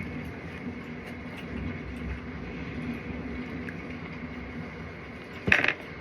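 Steady mechanical hum, with one short, sharp clack near the end.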